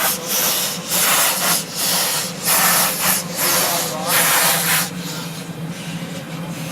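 Miniature steam locomotive chuffing, its exhaust coming in regular hissing puffs a little over one a second, with a steady low hum underneath. The puffs stop about five seconds in and leave a quieter, steady hiss.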